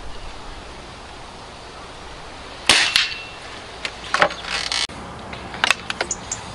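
Spring-piston air rifle firing once about three seconds in: a sharp crack with a brief ringing twang. Mechanical clicks and clatter of the rifle being handled follow, then sharp metallic clicks near the end as a break-barrel springer is broken open for cocking.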